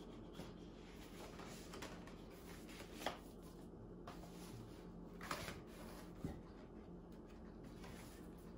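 Faint rustling and sliding of paper and cardboard record sleeves and a vinyl LP being handled on a countertop, with a few light taps about three, five and six seconds in.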